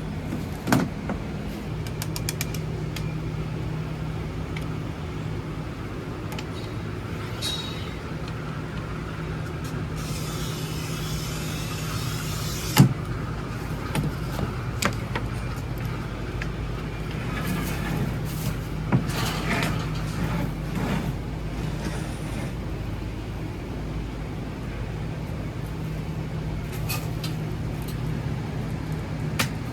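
A steady low mechanical hum throughout, with a few sharp knocks and clicks and a couple of seconds of hissing noise partway through.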